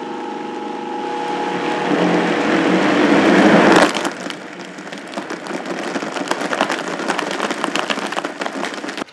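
Vitamix Explorian E310 blender running on a jarful of coffee, ice cream and ice: a steady motor whir that grows louder, then about four seconds in it drops in level and turns to a dense crackling rattle until it stops near the end.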